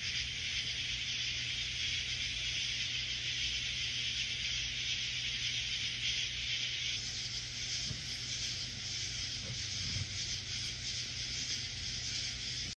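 Steady background hiss with a low hum underneath, with no distinct events; the hiss eases slightly about seven seconds in.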